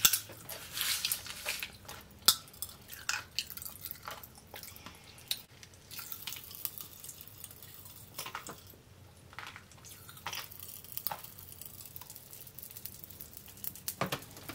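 Pop Rocks popping candy crackling in a mouth: many small, irregular pops and clicks, with a sharper pop about two seconds in.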